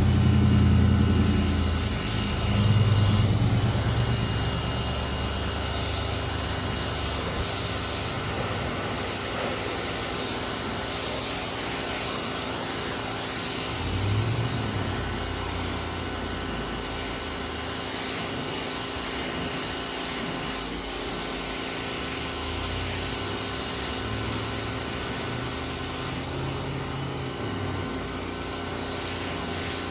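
FOTING electric pressure washer running: a steady motor-pump hum under the even hiss of the high-pressure water jet spraying a chair clean.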